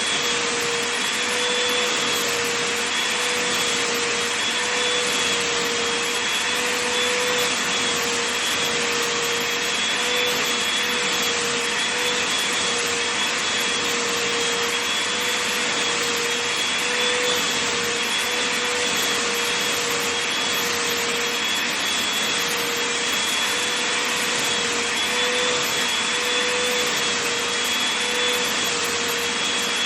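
Vacuum cleaner running steadily over a fleece blanket: a continuous rushing hiss with a faint, slightly wavering motor hum and a higher whine held throughout.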